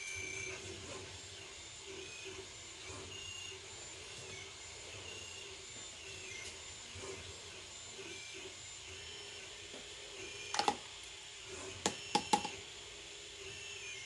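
Faint room tone with a low steady hum. A little past halfway come one sharp click and then a quick run of about three more: a paintbrush knocking against the watercolour tin as paint is picked up.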